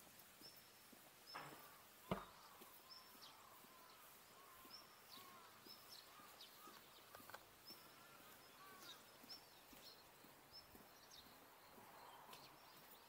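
Faint rural outdoor quiet with small birds calling over and over in short, high chirps, and softer lower chirps between them. One sharp knock about two seconds in.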